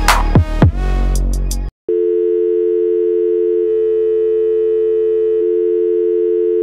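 Electronic dance music with steep falling pitch sweeps cuts off about a second and a half in. After a brief gap, a steady telephone dial tone, two tones held together, sounds unchanged to the end.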